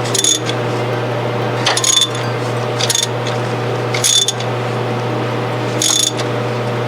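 Ratchet wrench clicking in short bursts, about once every one to two seconds, as cylinder head bolts are snugged down by hand. A steady low hum runs underneath.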